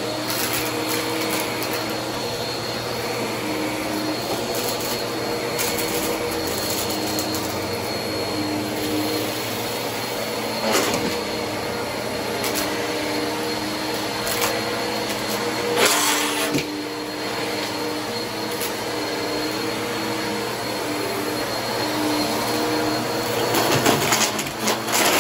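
Bissell CleanView upright bagless vacuum running steadily over carpet, with scattered bits of debris crackling and rattling up into its clear dust bin. The louder crunches come about 11 and 16 seconds in and near the end.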